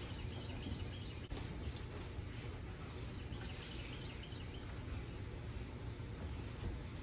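Steady low outdoor background noise, with faint high chirps about half a second in and again around three to four seconds in.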